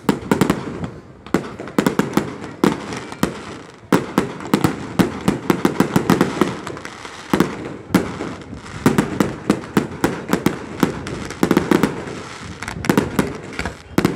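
Aerial fireworks display: shells bursting in quick succession, many sharp bangs a second with no break.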